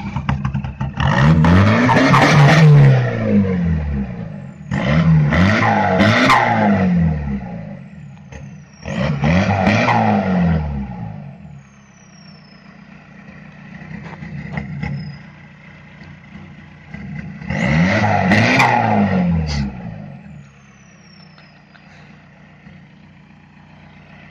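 VW Golf IV's 1.9 TDI (ALH) four-cylinder turbodiesel, fitted with a turbo from the 96 kW TDI and Sprint 764 injectors, revved four times from idle, each rev rising and then dropping back to idle. A high whistle falls away after several of the revs.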